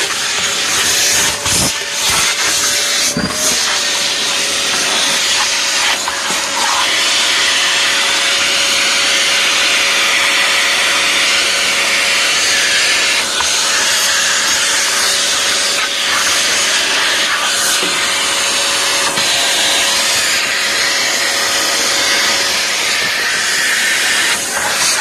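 A machine running steadily, with a loud rush of air and a constant humming tone underneath; a few light knocks about two to three seconds in.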